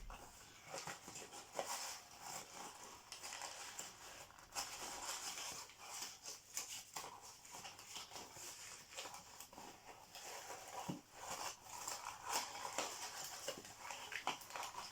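Hands working at a cardboard advent calendar door and unwrapping the small boxed item inside: irregular rustling, crinkling and small clicks of card and wrapping.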